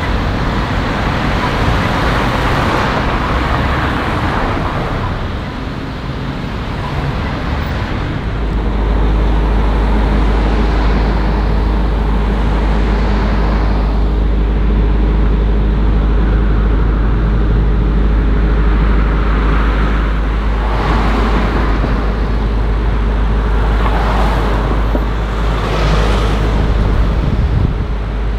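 Road traffic, cars passing one after another. A steady low hum sets in suddenly about eight seconds in and carries on under it.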